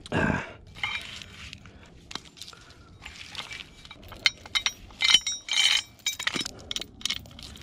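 Steel chain and its grab hook clinking and jingling against a snatch block as the chain is rigged through it, in many short irregular rattles, with a dull knock right at the start.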